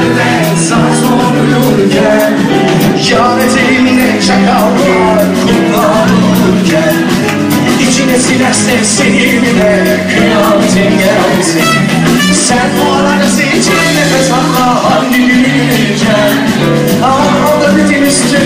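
Live band playing a Turkish pop song, with a male singer over keyboards, electric guitar and drums keeping a steady beat.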